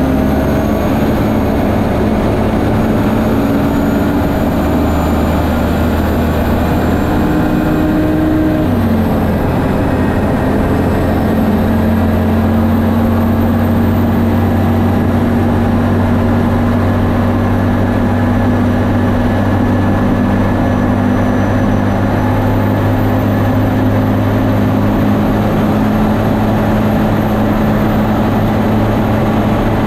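Turbocharged Chevy S-10 land-speed truck's engine running hard at high speed, with heavy wind and drivetrain noise. The engine note steps down once about nine seconds in, an upshift, then holds steady.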